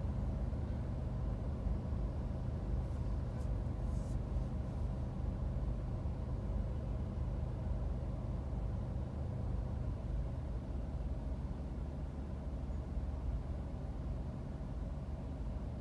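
Car idling while stopped in traffic, heard from inside the cabin: a steady low rumble with a faint hum.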